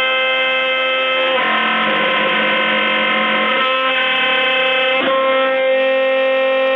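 CNC router spindle whining steadily as a cutter roughs a rotating wooden blank. The whine turns rougher and a little lower for about two seconds in the middle, and there is a brief click about five seconds in.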